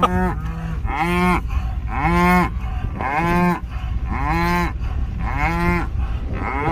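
Mooing: seven short rising-and-falling moo calls in a row, about one a second.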